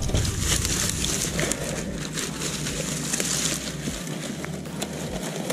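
Dry brush, grass and twigs rustling and crackling, with many small snaps, as kindling is gathered by hand from the undergrowth.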